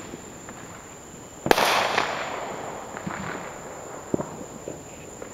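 A single loud firework bang about a second and a half in, echoing and fading away over a second or so. Scattered small pops and crackles follow.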